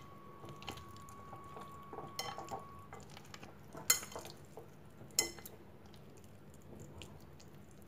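A hand mixing raw mutton chops into a thick spice paste in a glass bowl: soft wet rustling, with about three sharp ringing clinks against the bowl.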